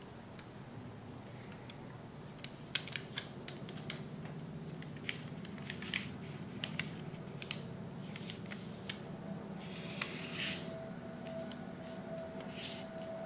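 A sheet of origami paper being folded by hand: scattered crisp crinkles and clicks as creases are pressed, with a louder rustle about ten seconds in as the paper is moved. A faint steady hum runs underneath.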